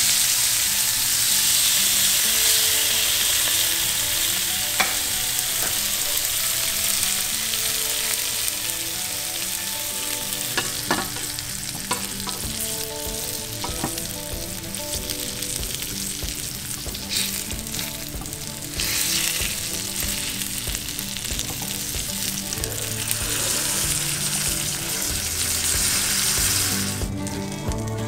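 Pierogi frying in hot butter in a nonstick pan: a steady sizzle, with a few sharp clicks of metal tongs against the pan as they are turned. The sizzle drops away near the end.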